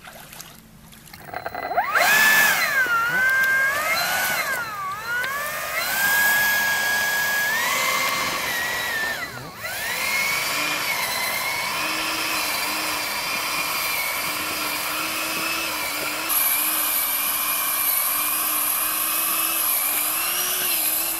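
Electric ducted fan of a model Bluebird K7 hydroplane whining, its pitch rising and falling as the throttle is worked, dropping away sharply twice, then holding a steady high whine. The boat is ploughing low in the water and cannot rise onto the plane, because it has sucked water into its air intake.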